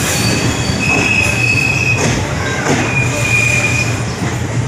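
Passenger express train's wheels squealing on the rails as the coach moves along the platform, in two long high-pitched squeals, about a second in and again around three seconds in, over the steady low rumble of the rolling train. Heard from the coach's open doorway.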